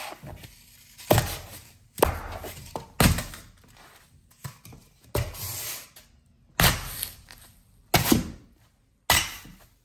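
Stiletto high heels stomping on a block of dry floral foam on a wooden floor: about seven sharp thunks, roughly a second apart with a longer pause near the middle, each followed by a short crunch and crumble as the foam breaks apart.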